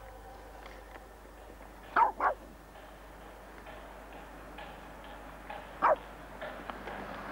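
Small terrier barking in short, high yips: two quick ones about two seconds in and a single one near the end.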